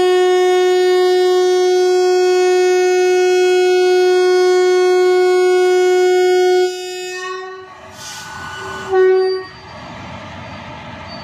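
WCAM3 electric locomotive's air horn sounding one long steady blast of about seven seconds as the train departs, then a short second blast about two seconds later. A steady low rumble follows.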